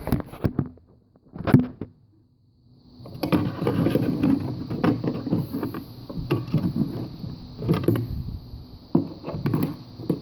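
Clicks, knocks and scraping of a bronze wire hook working a brass reed out of its slot in a reed organ's wooden reed board, with a brief pause near two seconds and then a busy run of scraping and rattling, a steady high hiss alongside.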